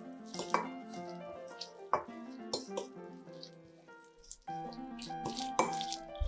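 Background music with a steady melody, with a few light clinks of a metal fork against a glass bowl as chopped herbs are mixed.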